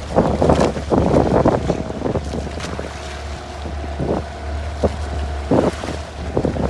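A small boat's motor running steadily, with wind gusting on the microphone, strongest in the first two seconds.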